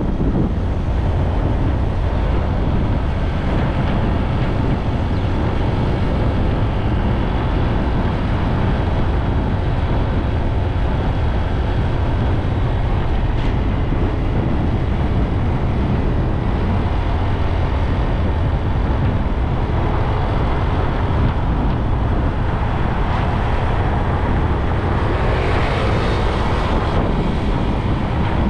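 Wind buffeting the microphone over the road noise of a motorbike riding along at speed, steady, with a brighter rush of noise swelling near the end.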